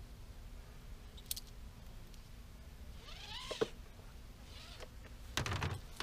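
A nylon tie-down strap being handled over a beehive, with a click early on and a cluster of buckle rattles and soft knocks near the end. About halfway through comes one short, cat-like mewing call that rises in pitch.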